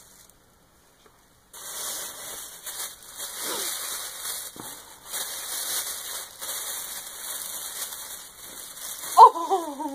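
Tissue paper rustling and crinkling as it is pulled out of a gift box, beginning after about a second and a half of silence. Near the end a voice gives a loud falling exclamation.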